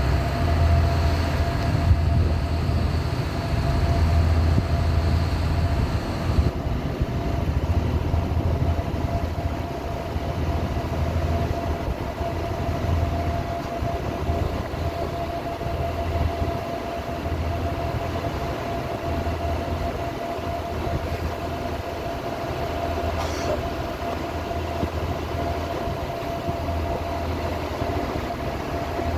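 Tour boat's engine running steadily under way: a low throbbing drone with a steady whine over it.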